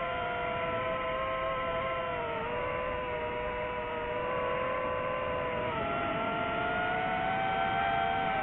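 DJI FPV drone's motors and propellers whining in flight, several tones at once that shift in pitch with the throttle: they drop about two and a half seconds in and climb again near six seconds.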